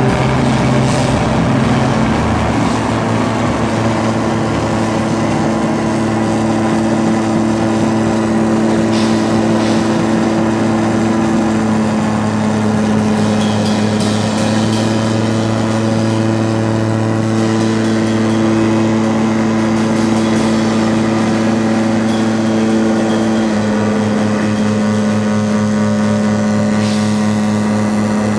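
Live noise-drone music from modular synthesizers and electronics: a loud, dense drone of held steady tones over a noisy wash. A fast low pulsing joins in near the end.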